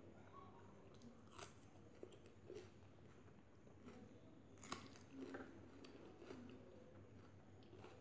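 Faint close-up eating sounds: a person chewing a mouthful of rice and curry, with wet mouth smacks and a few sharp clicks, the sharpest about four and a half seconds in.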